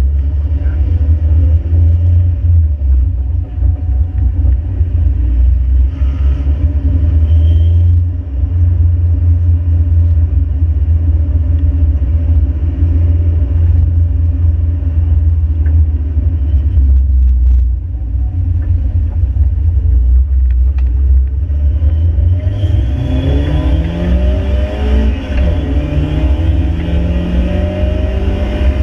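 Mk5 Ford Fiesta's stock 1.7 Puma four-cylinder engine with a heavy low rumble at low revs. About three-quarters of the way through, the revs rise under acceleration, drop at a gear change and climb again.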